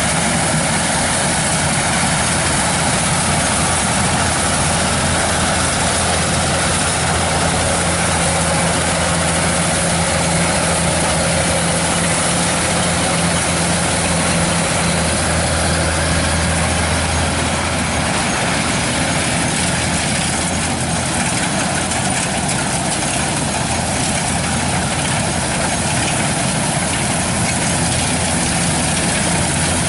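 Kubota DC-105X combine harvester running steadily while harvesting rice, a loud, even engine drone mixed with the noise of its machinery. The low engine note eases slightly about eighteen seconds in.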